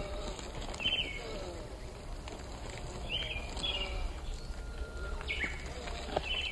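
Bird chirps, short and high-pitched, repeating several times over steady outdoor background noise.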